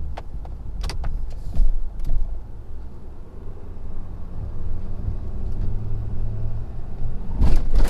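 A Ford F-250's 6.7-litre Power Stroke V8 turbodiesel running under load as the truck pushes a plow through deep, wet, heavy snow, with a steady low rumble. A few sharp knocks come in the first two seconds, and a louder surge of noise comes near the end.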